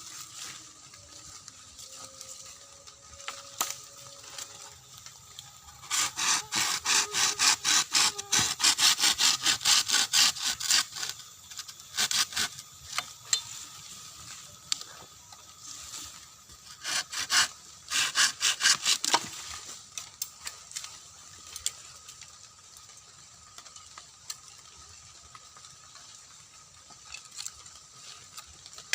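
Hand saw cutting through a bamboo stem in quick back-and-forth strokes, about three a second. There are three runs of sawing with pauses between them, the longest lasting about five seconds.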